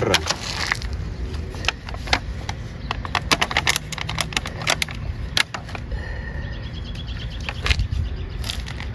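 Hands working potting soil around a plant in a pot: scattered irregular clicks and rustles over a low steady rumble.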